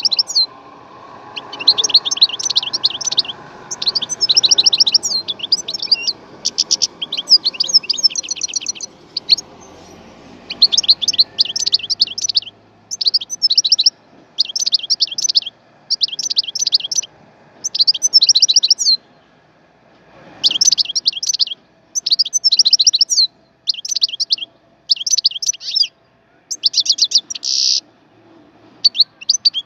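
European goldfinch singing: fast, liquid twittering phrases of one to two seconds with short pauses between them, and a drawn-out buzzy note near the end.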